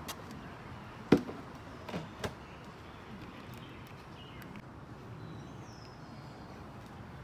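Handling noise as things are moved about: one sharp knock about a second in, then two lighter knocks about a second later.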